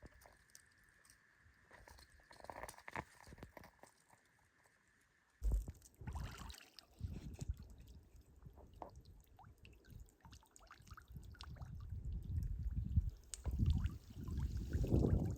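Water pouring, trickling and dripping in small splashes. A faint steady high tone fills the first few seconds; from about five seconds in, low rumbling wind on the microphone joins the splashing and grows louder.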